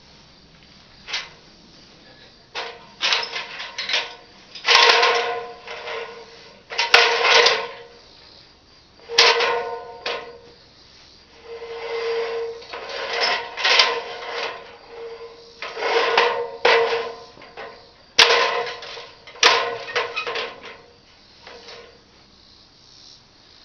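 A small power tool running in repeated short bursts, about eight or nine over the span, each holding a steady pitch for a second or so, with pauses and a few sharp knocks between.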